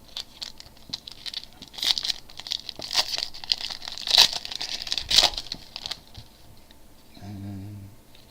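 A trading-card pack's wrapper being crinkled and torn open and handled, a dense run of crackling with sharp snaps that peaks several times, then stops about six seconds in. A brief low hum follows near the end.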